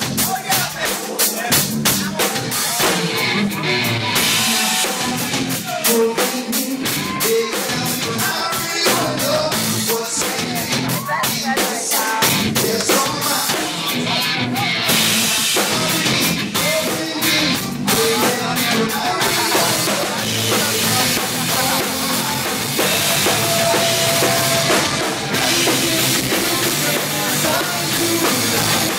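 Live rock band playing, heard from beside the drum kit so the drums are loudest: fast snare, tom and bass drum hits, then from about halfway a steady wash of crashing cymbals over the band.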